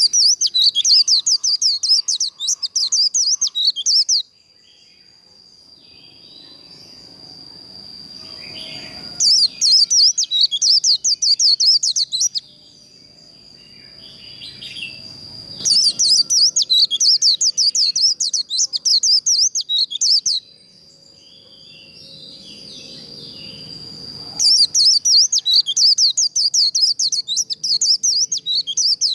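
White-eye (vành khuyên) singing its fast 'líu' song: four bursts of rapid, high twittering notes a few seconds each, with short pauses between. A thin, steady high tone runs underneath throughout.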